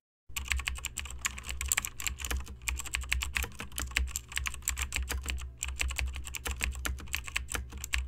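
Computer keyboard typing sound effect: rapid, irregular key clicks that stop briefly about five and a half seconds in, then resume, over a low steady hum.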